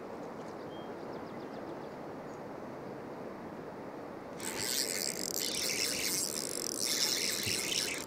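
Steady rush of wind and river water, then about four seconds in a high, rasping buzz from a fishing reel starts and carries on while a hooked white bass is reeled in.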